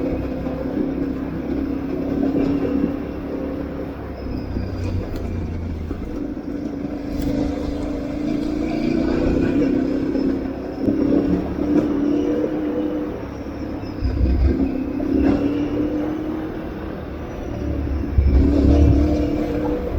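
Aprilia Tuareg 660's parallel-twin engine running under changing throttle on an off-road ride, its note rising and falling over a low rumble, with a few sharp knocks.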